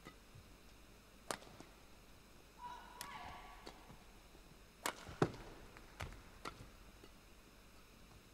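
Badminton rally: rackets strike the shuttlecock with sharp clicks every second or so, the hardest hit, with a low thud, about five seconds in. Court shoes squeak briefly on the court mat about three seconds in.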